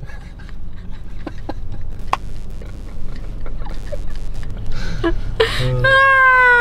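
Steady low hum of a tow vehicle driving, heard inside the cab, with a few faint clicks. Near the end, a high, drawn-out voice sound lasting about a second, falling slightly at its close.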